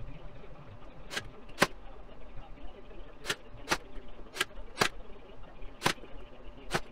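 Cordless nail gun firing eight times, the shots mostly in pairs about half a second apart, driving nails through trim into a plywood bookcase.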